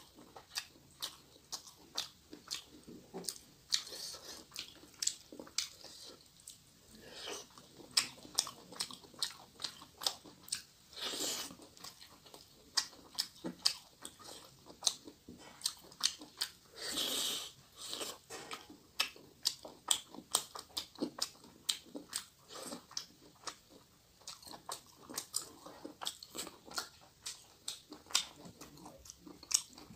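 Close-miked chewing of rice and fish curry eaten by hand, full of sharp mouth clicks and smacks, several a second, with two longer, noisier sounds about 11 and 17 seconds in.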